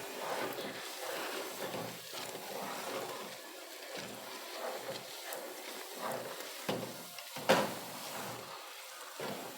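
Stew base frying in a pot with a steady sizzle, broken by small scrapes and clicks of utensils and one sharp knock about seven and a half seconds in.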